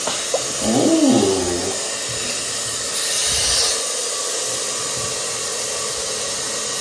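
Jellyfish handheld pet dryer running steadily on a warm heat setting, an even rushing hiss of blown air that swells briefly about three seconds in. A brief vocal sound rises over it about a second in.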